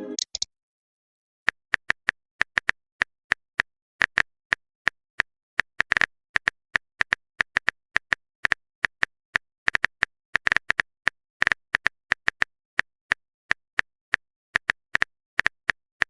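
Phone keyboard typing sound effect: a long run of quick, uneven key-tap clicks, about three or four a second, after a second and a half of silence.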